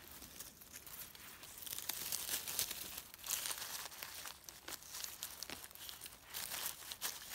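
Dry fallen leaves and moss rustling and crackling under a hand as a young bolete is dug out and lifted from the forest floor. The crackling starts about two seconds in and comes in quick irregular runs.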